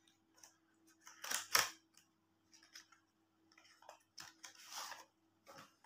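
Cardboard box being opened by hand, its inner tray scraping and sliding out of the sleeve in a few short rustling bursts, the loudest about a second and a half in. A faint steady hum runs underneath.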